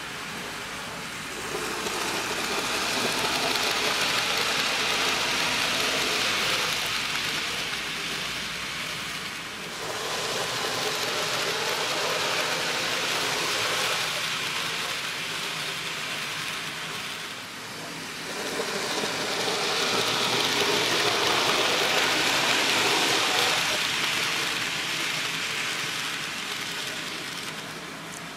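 N scale model train running on the track, its wheels rattling over the rails with a motor whir; the noise swells and fades three times as the train passes close by.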